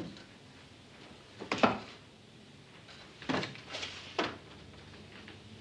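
Wooden canvas stretcher frames knocking against each other as they are tipped forward and let back: a few separate knocks, the loudest about one and a half seconds in, then three more in quick succession near the end.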